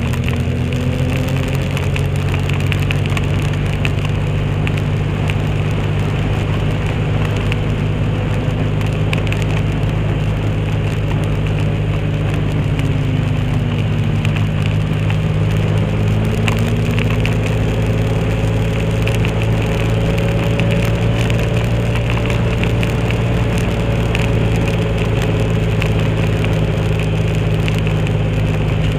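Motorcycle engine running steadily at cruising speed under heavy wind rush, with the rapid crackling flutter of a cloth flag whipping in the wind right at the microphone. A fainter engine note dips and rises again about halfway through.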